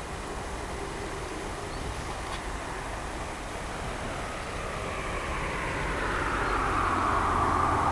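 Steam locomotive-hauled train approaching, its running noise growing steadily louder and peaking near the end.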